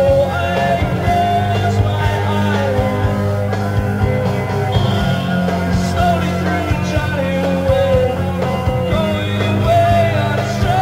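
Live rock band playing a mid-tempo song, with a sustained bass line, regular drum beats, and a male voice singing the melody over them.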